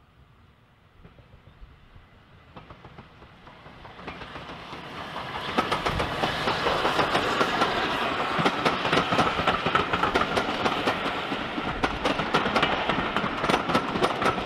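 Passenger train approaching, growing steadily louder over the first five seconds or so, then running past close by with its wheels clicking over the rail joints.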